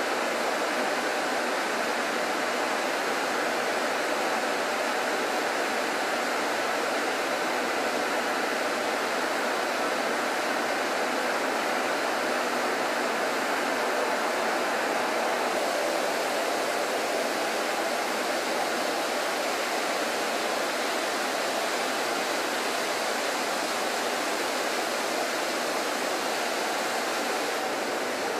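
Steady rushing hiss of flood coolant spraying over a titanium part inside a Makino five-axis horizontal machining centre while it mills.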